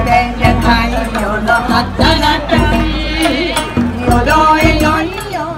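Bon odori folk music: a singer's voice with wavering, held notes over steady drumbeats and accompaniment.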